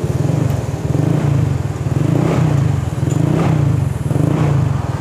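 Honda Vario scooter's single-cylinder engine running near idle through an aftermarket SKR 'standard racing' exhaust: a steady, pulsing low exhaust note that swells slightly a few times.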